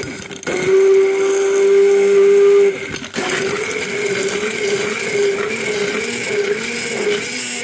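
Immersion hand blender's motor running in a jar of apricots and water, blending them into juice. A steady whine for the first couple of seconds, a brief dip about three seconds in, then it runs on with its pitch wavering up and down as the blade churns the fruit.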